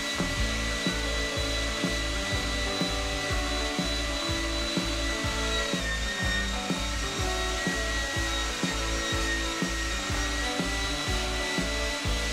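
Electric meat grinder motor running with a steady high whine while it minces fish fillets; its pitch dips briefly about halfway through. Background music with a steady beat plays underneath.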